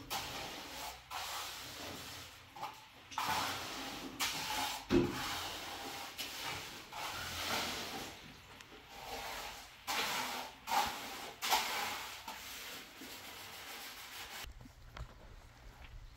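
Wet cement being spread and smoothed across a floor by hand, a run of irregular rubbing, scraping strokes, with one sharper knock about five seconds in.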